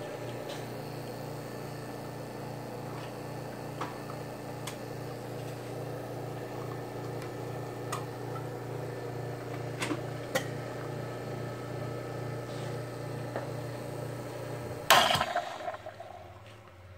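Astoria two-group commercial espresso machine running with a steady low hum and a few light clicks. About fifteen seconds in there is a sudden loud burst, the hum stops, and the sound fades away.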